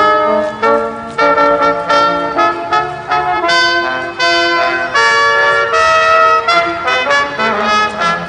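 Brass music with a trumpet-led melody, a steady run of held notes changing every half-second or so.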